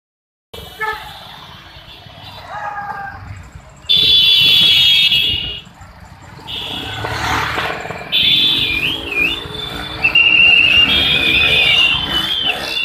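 Motorcycles going by on a road, their engines a low rumble, under loud, shrill, high tones. One steady tone sounds about four seconds in for about a second and a half. Wavering, warbling tones run through the second half.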